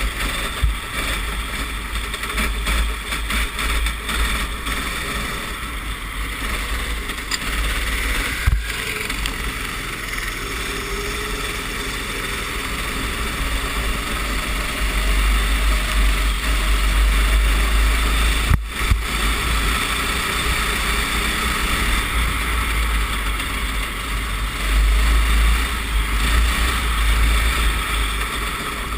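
Racing kart's engine running at speed, rising and falling as the kart accelerates and slows, with heavy wind rumble on the onboard microphone in the wet. Two sharp knocks stand out, at about 8 s and at about 19 s.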